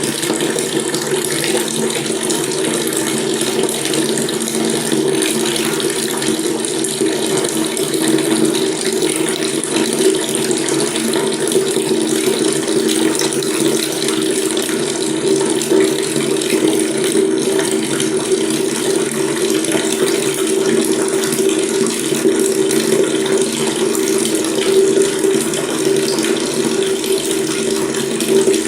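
Water running steadily from a tap, a continuous splashing rush with a strong low hum in it.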